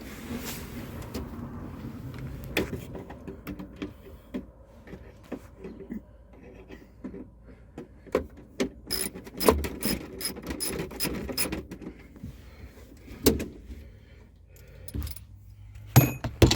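Hand tools and small metal parts clicking, clinking and knocking in scattered bursts, busiest in the middle and with a sharp knock near the end.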